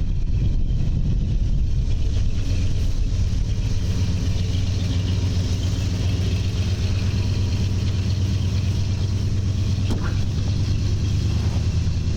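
A vehicle engine running steadily at an even speed, with a low, constant hum.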